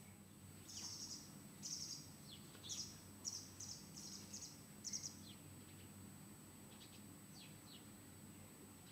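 Small birds chirping in short, high bursts. There is a busy run of chirps in the first five seconds, then a few fainter ones near the end, over a faint steady low hum.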